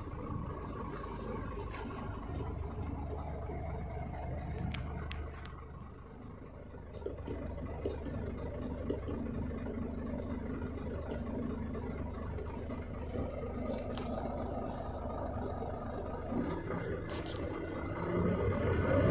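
Scania truck's diesel engine idling steadily at low idle, heard from inside the cab. It begins to rev up toward high idle near the end, and a few light clicks sound along the way.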